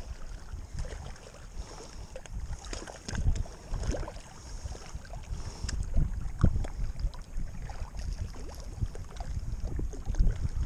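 Shallow seawater sloshing and lapping against rocks, with wind buffeting the microphone in uneven low gusts. A few short clicks and knocks come through on top.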